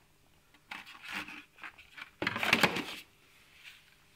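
Moulded plastic tray rubbing and scraping against a cardboard box as it is handled and set back in. There are a few short scrapes, then a louder one lasting nearly a second about two seconds in.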